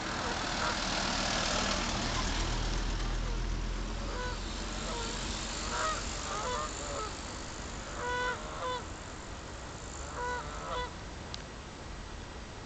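Canada geese honking on a pond, in short groups of two or three calls from about four seconds in. A rushing noise lies underneath and is loudest in the first few seconds.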